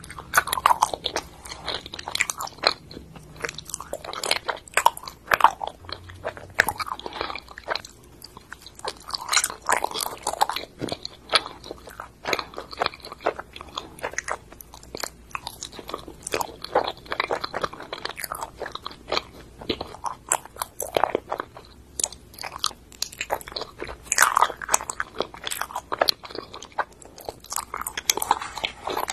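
Close-miked mouth sounds of ice cream mochi being bitten and chewed: a dense, irregular run of sticky smacks and clicks.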